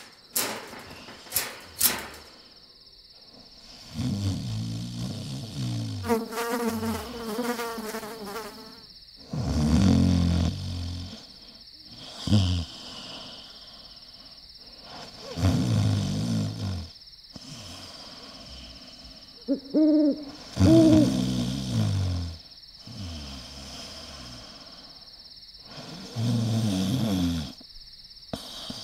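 A steady high insect chirring, like crickets at night, runs under repeated low pitched hoots or moans, each a second or two long, some wavering in pitch.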